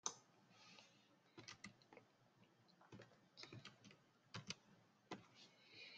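Faint, scattered clicks of a computer keyboard and mouse, coming in small groups about every second.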